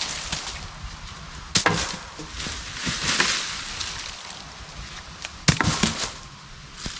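Dead branches cracking and snapping as an A-frame debris shelter of sticks and leaf litter is pulled apart: two sharp cracks, about a second and a half in and again near the end, with smaller snaps and rustling of leaves and debris between them.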